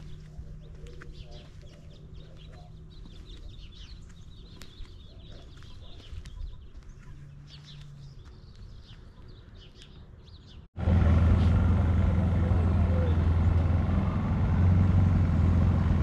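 Small birds chirping over a faint low hum. A little under eleven seconds in, the sound cuts abruptly to a much louder, steady low drone of a car engine running.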